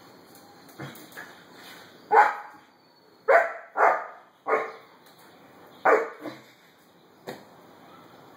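Irish Wolfhound puppy barking: a run of about five loud, sharp barks starting about two seconds in, with a few quieter ones before and after.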